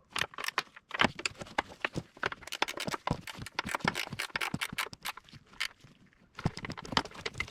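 Hand ratchet clicking rapidly and unevenly as two 10 mm bolts are run down and tightened, with a short pause about six seconds in.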